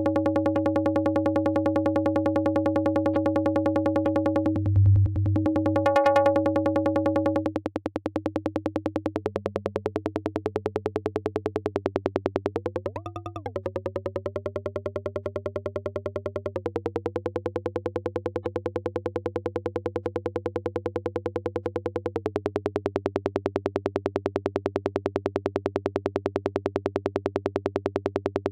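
VCV Rack software modular synthesizer patch for a forest psytrance effect: a steady low bass tone under rapidly pulsing pitched synth tones. The pitch sweeps up and back down about halfway through, then steps lower twice.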